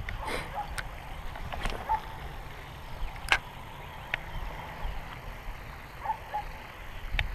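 Quiet outdoor ambience: a steady low rumble with a few scattered sharp clicks, the loudest about three seconds in, and some faint short chirps.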